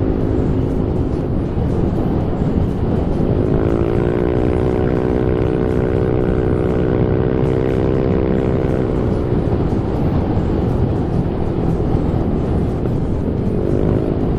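Yamaha NMAX scooter's single-cylinder four-stroke engine running through an AHM aftermarket exhaust while riding at speed, under heavy wind and road noise. The exhaust note rises about three seconds in, holds steady for several seconds, then fades as the throttle eases, with a short rise again near the end.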